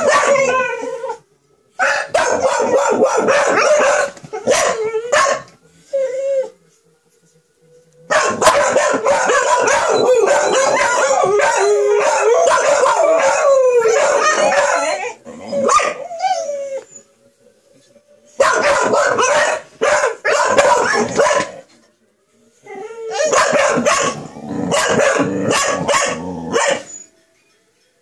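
Dog howling like a wolf, long wavering howls mixed with yips and barks, in several bouts broken by short pauses.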